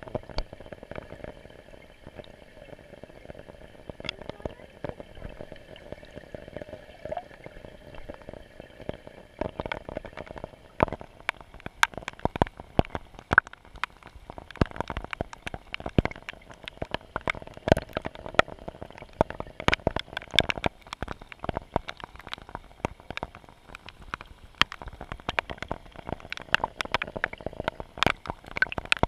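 Raindrops hitting the surface of a swimming pool, heard from a camera at and below the waterline: a dense, irregular patter of sharp ticks and pops that grows heavier about ten seconds in, over a faint steady hum.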